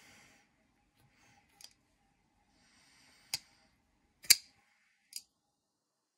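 QSP Legatus folding knife being flipped open and shut with its pivot still dry: a few sharp metallic clicks as the blade snaps into place, the loudest a little after four seconds in, with faint handling rustle between them.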